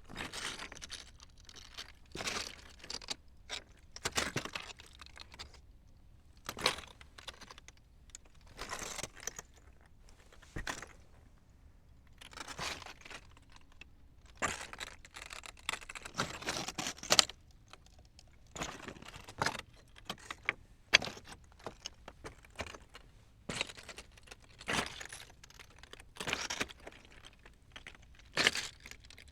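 Foley handling sounds: a long run of irregular clinks, rattles and rustles, some single, some in quick clusters, with brief pauses between.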